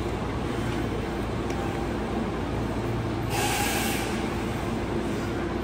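Hanshin Electric Railway train at the station platform with a steady low rumble and hum, and a short hiss a little past halfway through.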